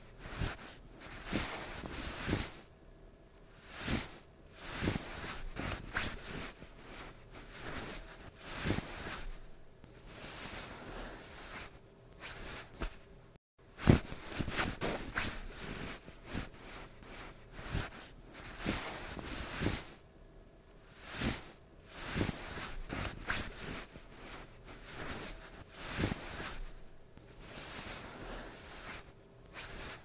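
Someone moving on a bed: bedclothes and mattress rustling and shifting in irregular bursts every second or two, with one sharp knock about fourteen seconds in.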